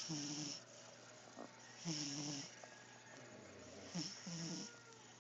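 Cat snoring in its sleep: three snores about two seconds apart, each a short, pitched, rasping breath with a hiss.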